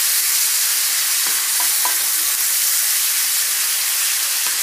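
Diced lamb sizzling steadily in hot oil in a nonstick frying pan while being stirred with a wooden spatula.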